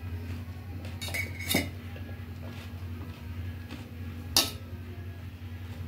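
Stainless steel bowls clinking and knocking as they are handled on the table: a ringing clink about a second and a half in and a sharp knock a little after four seconds, over a steady low hum.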